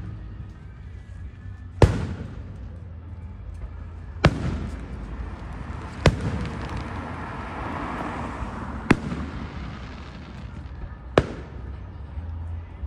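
Aerial fireworks going off: five sharp bangs spaced two to three seconds apart, the first the loudest, with a hiss through the middle stretch.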